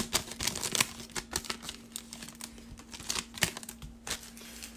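Foil wrapper of a 2019 Panini Certified football card pack crinkling and crackling as it is opened and handled, in a quick run of sharp crackles that thin out near the end.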